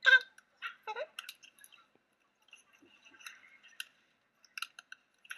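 Hands handling and pressing paper card stock: scattered small clicks and crinkles.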